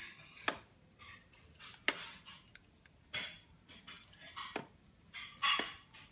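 A handful of sharp clicks and light knocks, about five, with short rustling bursts between them. The loudest burst comes near the end.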